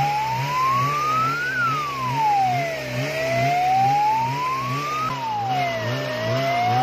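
Rescue truck siren wailing, its pitch rising and falling slowly about every three seconds, over a low warble pulsing about twice a second. About five seconds in, the wail breaks off and restarts high.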